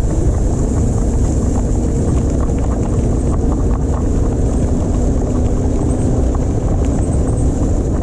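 Wind buffeting the microphone and tyres rolling on a rough path while an all-wheel-drive e-bike is ridden at speed, with a faint steady hum and light rattling throughout.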